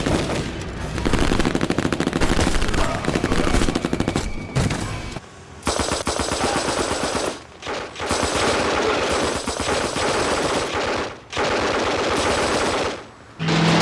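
MAC-10 submachine guns firing long full-auto bursts in movie soundtracks: rapid, continuous shots, broken by several short pauses.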